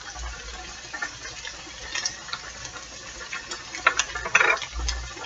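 Ground beef and vegetables frying in a skillet with faint crackling and scattered ticks, and a brief rattly burst about four seconds in as garlic salt is shaken over the meat.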